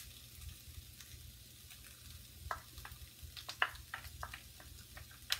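Chicken, vegetables and egg frying in a hot pan with a steady faint sizzle, the oyster sauce just added. From about halfway in, a spatula clicks and scrapes against the pan as the food is stirred.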